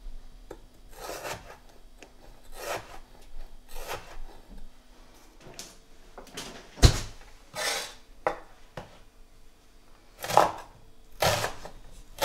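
Cleaver cutting potato and onion on a wooden chopping board: about ten uneven cuts, with one sharp knock of the blade on the board about seven seconds in.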